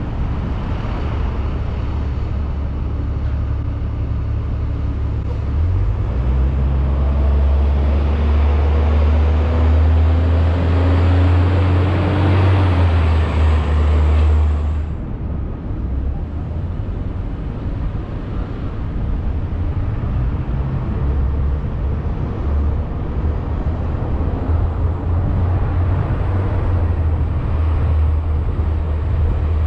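Car driving on city streets: a steady low rumble of engine, tyre and wind noise. It swells for several seconds in the middle with a rising engine tone, then drops back suddenly about halfway through.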